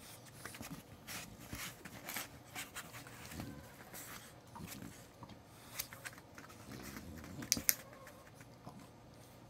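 Dog-training clicker giving a sharp double click about seven and a half seconds in, marking the dog's nose touch on the pool noodle. Around it, faint small taps and rustles from a French bulldog working at a foam pool noodle.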